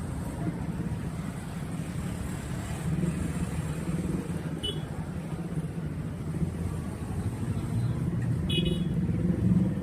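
A motor vehicle running with a steady low rumble. Two brief high squeaks come through, one about halfway through and one near the end.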